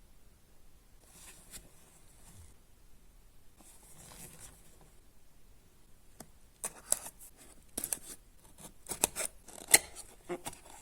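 Webcam retail box being handled and opened: soft rubbing and sliding at first, then a quick run of sharp snips and clicks from about six and a half seconds in.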